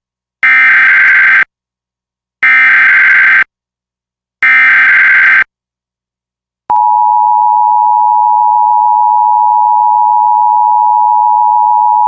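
Emergency Alert System SAME header: three one-second bursts of buzzing digital data tones, a second apart. Then, about six and a half seconds in, the EAS attention signal starts: a loud, steady tone near 1 kHz that holds.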